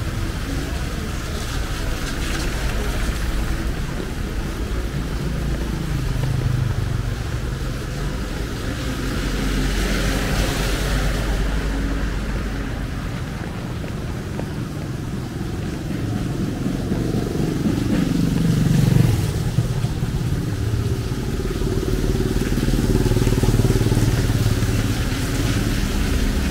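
Motorcycles and other road traffic passing on a rain-wet city street. Their engines rise and fade as they go by, the loudest about two-thirds of the way through, with a hiss of tyres on the wet road.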